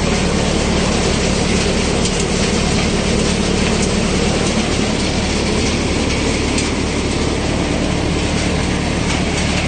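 Multicrop thresher running steadily under load while threshing groundnuts: a continuous mechanical drone with a low hum and a few faint ticks.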